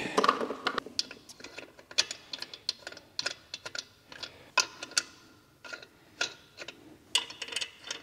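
Lug nuts being hand-threaded onto the wheel studs: irregular small metallic clicks and ticks, several a second, with a few short gaps.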